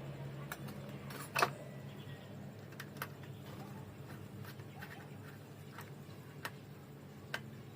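Scattered small clicks and taps from hands working on motorcycle wiring and parts, with one louder click about a second and a half in, over a low steady hum.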